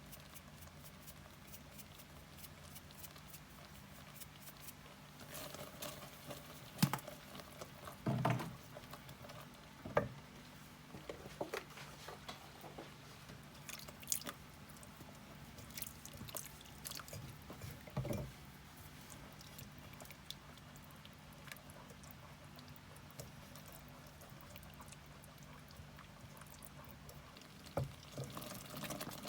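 Kitchen work during cooking: scattered light clicks and knocks, irregular and a few seconds apart, over a faint steady low hum.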